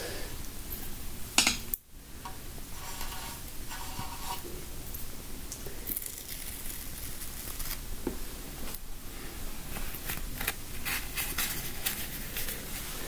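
Scratching and clicking of a hand tool picking at the surface of a canvas board. A sharp click about a second and a half in, then short intermittent scrapes, thickest near the end.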